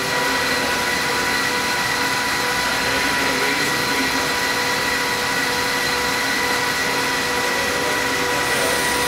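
Manual metal lathe running steadily: an even mechanical whine over a broad machine hum.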